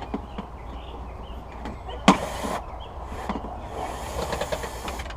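Hands and tools working in a car's engine bay around the battery tray: scattered small clicks, a sharp knock with a short scrape about two seconds in, and a longer scraping, clicking run near the end.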